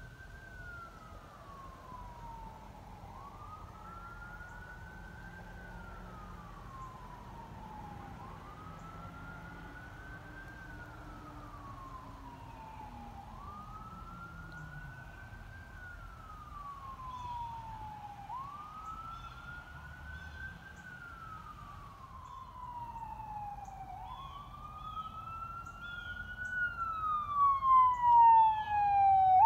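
Emergency vehicle siren on a slow wail: each cycle rises quickly, then falls off over about five seconds. In the last several seconds a second, higher and faster-sweeping siren tone joins in, and the siren becomes much louder near the end as the vehicle comes close.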